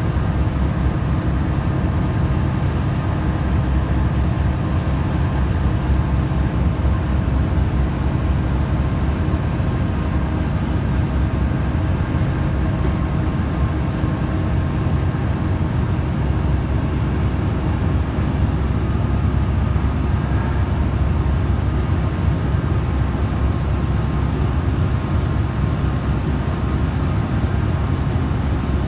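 Steady low drone of heavy diesel machinery, with several steady engine tones and a faint high whine over it.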